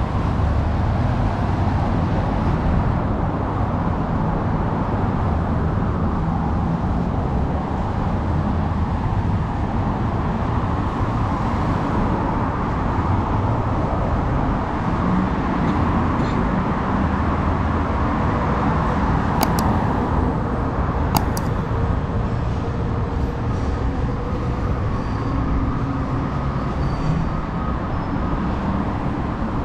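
Downtown street ambience: steady traffic noise of passing cars and other vehicles. Two sharp clicks about two-thirds of the way in.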